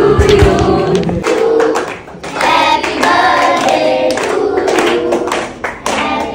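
A class of children singing a birthday greeting together, with hand-clapping along.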